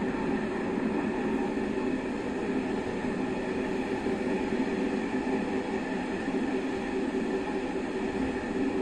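Passenger train running steadily between stations, heard from its rear coach: a continuous rumble of wheels on rail with a steady hum, without separate knocks.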